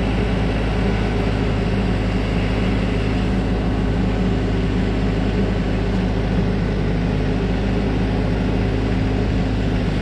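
TYM 574 tractor's diesel engine running steadily as it powers the rear backhoe working the boom and bucket.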